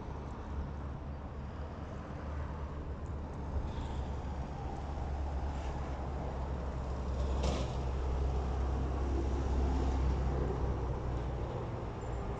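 Low rumble of road traffic that swells about halfway through as a vehicle passes and then eases off, with one sharp click about seven seconds in.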